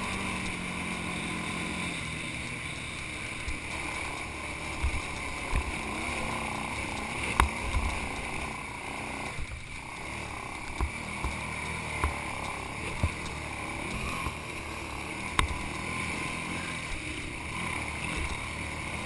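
ATV engine running as the quad rides a rough, rutted dirt trail, with occasional sharp knocks from the machine jolting over bumps.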